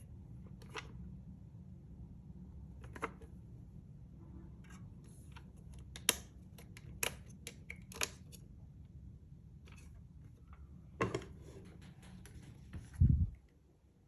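Scattered sharp clicks and clacks from an airsoft Thompson M1928 replica being handled, about six single clicks and then a short cluster. A heavy low thump near the end is the loudest sound.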